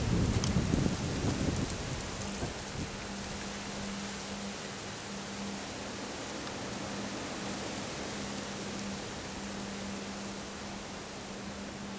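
Steady rain hiss and wind during a passing storm, with gusts buffeting the microphone in the first two seconds. A steady low hum sits underneath.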